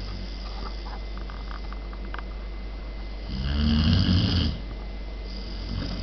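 German Pointer puppy snoring in her sleep: one loud snore about three seconds in, lasting just over a second, with a fainter snore near the end.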